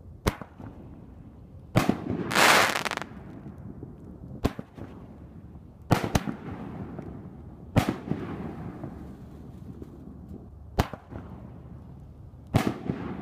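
60-gram consumer canister firework shells being fired: a series of sharp bangs from launches and bursts, a second or more apart, with a loud spell of hissing about two seconds in.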